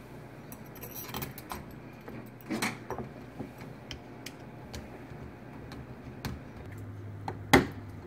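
Small metallic clicks and clinks of a screwdriver and screws against the August Smart Lock's metal mounting plate as it is screwed onto the back of a deadbolt, with one sharper click near the end.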